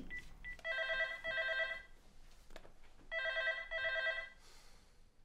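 Desk telephone ringing with an electronic warbling double ring, twice in a row, about two and a half seconds apart, going unanswered.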